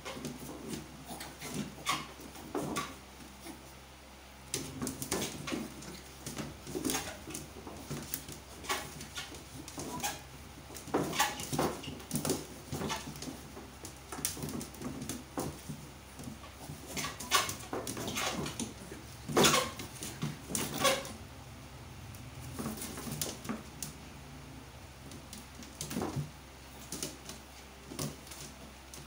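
Two small dogs play-fighting: scuffling and knocking of paws on a hard floor, with short dog whimpers and yips at irregular moments.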